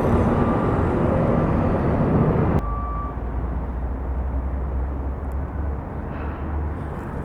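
Steady motor-vehicle and traffic noise with a low engine hum, which drops abruptly to a quieter low rumble about two and a half seconds in.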